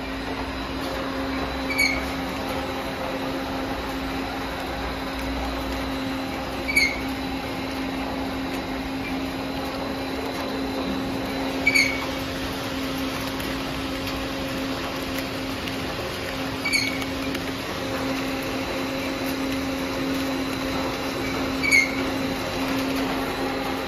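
Pani puri pellet snack machine running: a steady mechanical hum with one low held tone. A short, high chirp cuts through about every five seconds, five times in all.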